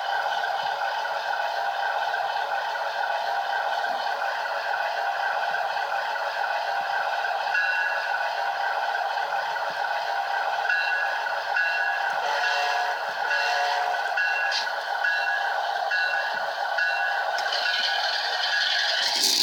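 Train, with several steady tones held throughout; from about eight seconds in, a short tone repeats about twice a second over them.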